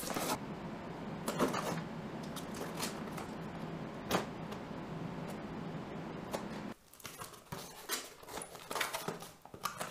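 Cardboard shipping box being opened by hand: scraping and rustling of the flaps, with a few sharp clicks. A steady hiss runs under it for most of the time and cuts off suddenly, leaving a few separate small clicks and rustles near the end.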